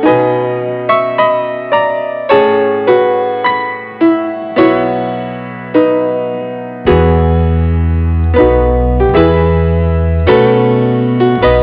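Background piano music: a melody of struck notes that fade after each stroke, joined about seven seconds in by a deeper, held bass line.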